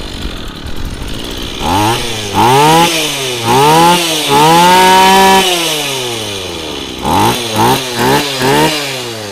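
Small 23cc two-stroke brush cutter engine running and being revved on the throttle. It idles at first, then gives three quick revs and a longer one held at high speed before dropping back toward idle. Near the end come four short throttle blips.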